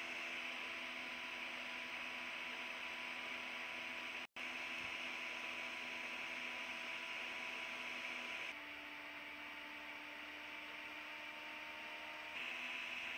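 Steady hiss with a faint electrical hum of several steady tones. The sound cuts out for an instant about four seconds in, and past the middle it turns slightly quieter with the hum shifting pitch for a few seconds.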